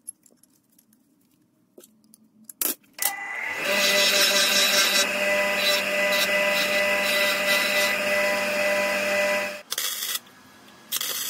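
Bench grinder switched on about three seconds in, spinning up and running with a steady hum while galvanised steel is ground on its wheel to strip the zinc coating. It stops abruptly, and short crackles of tack welding follow near the end.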